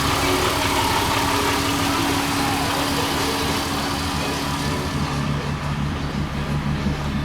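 VR6 24-valve six-cylinder engine idling steadily, heard through a straight exhaust with no catalytic converter or resonator, just a 2.75-inch pipe and a Magnaflow muffler.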